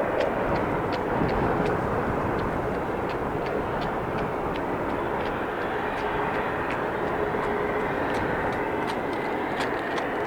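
Aircraft engines heard as a steady broad rumble that eases off slightly over the first couple of seconds, with many small sharp ticks on top.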